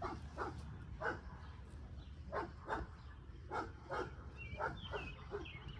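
An animal calling in short, sharp calls, about a dozen of them at uneven intervals over several seconds, with some higher, chirpier calls near the end.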